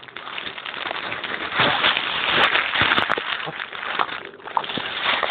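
Rustling and crackling of leaves, stems and twigs as someone pushes through dense undergrowth, with branches brushing close against the microphone. The sound is loudest in the middle stretch.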